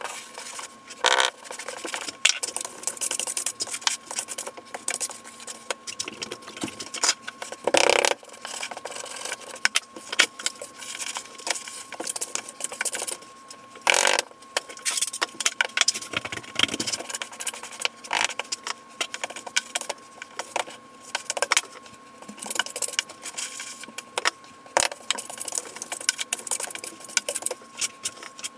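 Wooden hand float, and at times a steel trowel, rubbing and scraping over the damp sand-and-cement mortar of a shower preslope in quick, repeated gritty strokes while the surface is smoothed, with a few louder knocks now and then.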